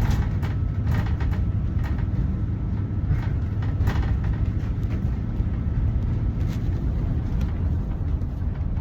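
Inside a moving city bus: the engine and road make a steady low rumble, with a few faint clicks or rattles.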